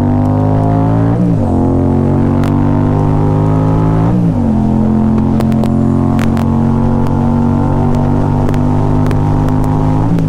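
Yamaha FZ-07 parallel-twin engine accelerating hard in traffic on a highway: its pitch climbs, then drops sharply with an upshift about a second in and again about four seconds in, then holds nearly steady at cruising speed, under constant wind rush.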